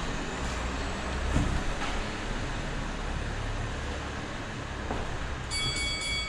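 Steady low rumbling noise with a few faint knocks, and a set of high steady tones coming in near the end.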